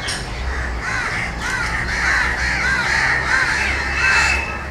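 Crows cawing, many short calls in quick succession.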